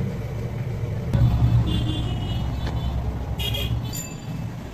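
Road traffic: a motor vehicle's low rumble swells about a second in and fades, with two short horn toots.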